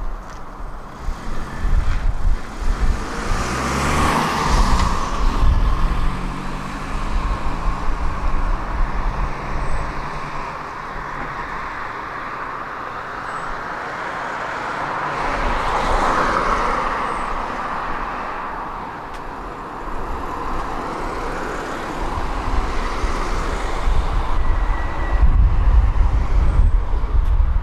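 Road traffic: two cars pass by on the street, the first about four seconds in and the second around sixteen seconds. Each one's tyre hiss and engine swell and then fade as it goes by, and the first drops in pitch as it passes.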